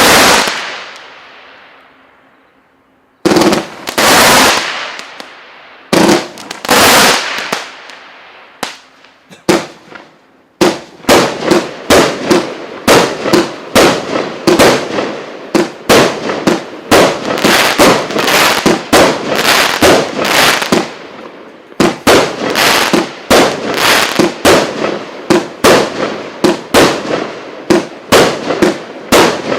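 Multi-shot fireworks battery firing, loud bangs with crackling tails. A few separate volleys come first, then from about ten seconds in the shots run on quickly, roughly two a second.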